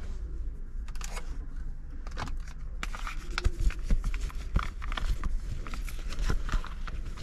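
Irregular clicks, knocks and rustling of hands working with parts, likely plastic trim and wiring, over a steady low hum.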